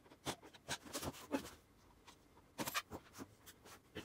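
Scattered light clicks and knocks of hand tools and motorcycle parts being handled, a few sharp taps about a second apart, then a small cluster near the end.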